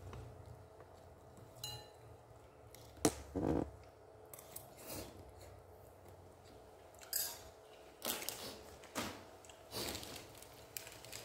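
Scattered light clicks, taps and rustles of plates, a plastic rice paddle and food packaging being handled, over a faint steady hum.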